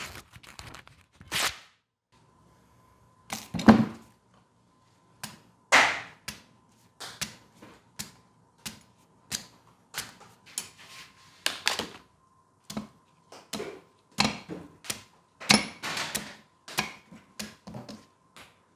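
Freshly restored Joseon sickle being tested for sharpness: a quick swish of the blade through a sheet of paper, then a long run of sharp chopping strikes, about two a second, as it cuts slices off a cucumber clamped in a vise.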